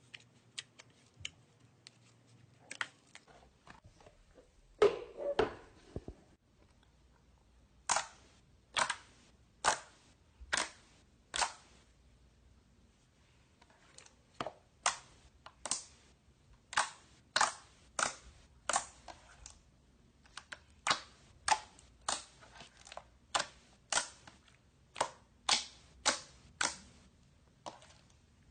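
Slime being squeezed and pressed by hand, giving sharp pops of trapped air. The pops come about one a second in runs, with a louder squelch about five seconds in.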